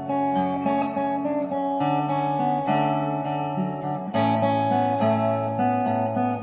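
Acoustic guitar played with picked notes over held chords, the chord changing about two and four seconds in.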